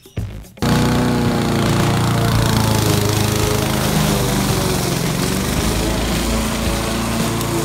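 Honda self-propelled lawn mower's four-stroke engine running under load as it cuts through long, thick grass, cutting in abruptly about half a second in. It runs steadily, its note sagging slightly midway as the grass loads the blade.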